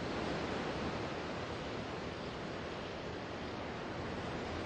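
Steady rushing outdoor ambience: an even wash of noise with no distinct events.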